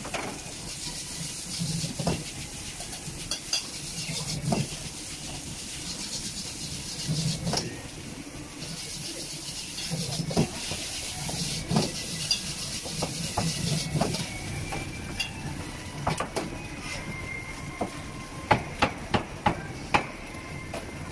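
Egg and rice sizzling in a hot wok while a metal ladle stirs, scraping and clanking against the wok every second or two. Near the end there is a quick run of about five sharp metal knocks.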